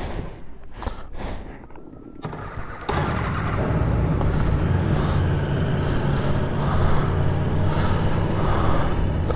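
Aprilia Tuono V4 1100's V4 engine running as the motorcycle rides on; the loud, steady engine rumble comes in suddenly about three seconds in, after a quieter start.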